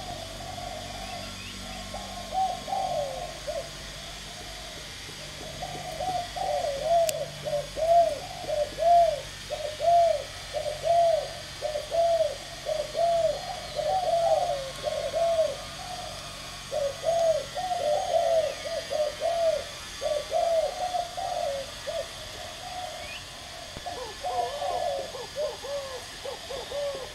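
Caged spotted dove cooing: a long run of short, arched coos, roughly two a second, broken by brief pauses.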